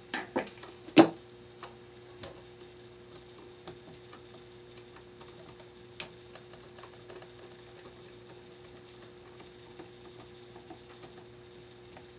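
Screwdriver and copper wire clicking against the terminal screws of a switch/outlet combination device as a wire loop is tightened under a screw. A few sharp clicks come about a second in, followed by light, irregular ticks.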